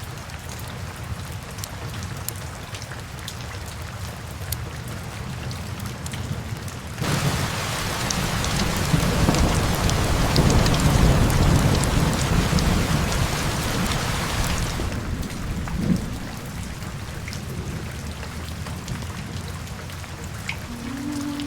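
Steady rain. About seven seconds in, a louder stretch sets in with heavier rain and a low rumble of thunder. It stops abruptly about fifteen seconds in, and the steady rain carries on.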